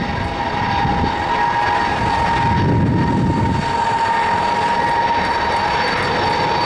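Ilyushin Il-76-type four-engine jet transport taxiing, its turbofan engines running with a steady high whine over a broad rumble.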